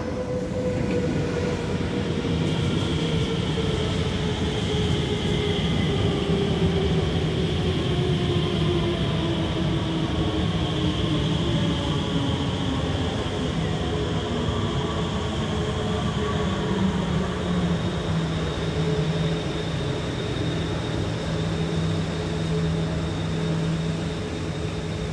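Alstom Movia R151 metro train pulling in and braking to a stop, with wheels rumbling on the rails. Its electric drive whine falls steadily in pitch for most of the approach, then settles into a steady hum as the train comes to rest, with a faint high steady tone above.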